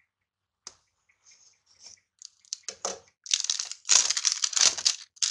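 Clear plastic shrink-wrap on a smartphone box being slit with a small blade, with a click and a few faint scratches, then loud crinkling and tearing from about three seconds in as the wrap is ripped and peeled off the box.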